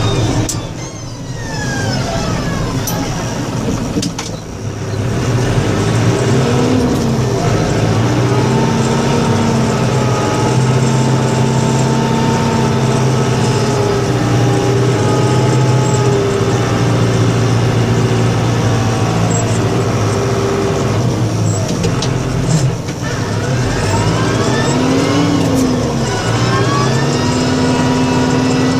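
Engine of a snow-plowing vehicle running and changing speed: its pitch drops near the start, holds fairly steady, then climbs again a little over twenty seconds in.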